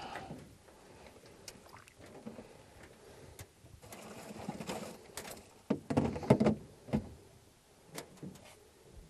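Water sloshing and gurgling around a large peacock bass held at the surface on a lip grip as it is revived, loudest in a short cluster near the end, with a few sharp clicks scattered through.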